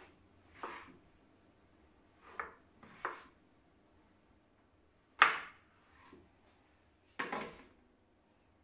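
Kitchen knife slicing an eggplant on a plastic cutting board: about six separate cuts, each ending in a short knock of the blade on the board, the loudest about five seconds in.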